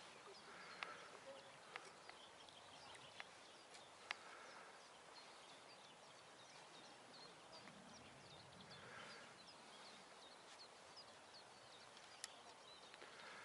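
Faint birdsong: many short, high chirps repeating throughout, over a quiet outdoor hush, with a few sharp clicks in the first few seconds and one near the end.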